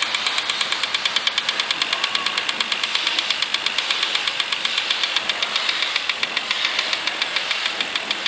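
Wahoo KICKR 2016 (Gen2) direct-drive smart bike trainer running, its flywheel whirring under a rapid, regular clicking of about nine clicks a second. The clicking is an abnormal noise from the trainer.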